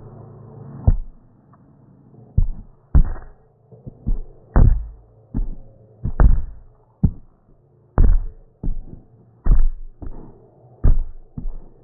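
A hand patting and rubbing against the recording phone, making a series of about a dozen dull thumps on its microphone at an uneven pace, roughly one a second and sometimes faster.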